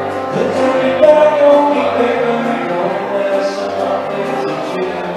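Music with singing, sustained notes over a steady low bass.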